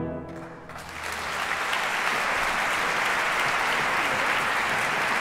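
An orchestra's final held chord dies away, and about a second in a concert-hall audience breaks into steady applause.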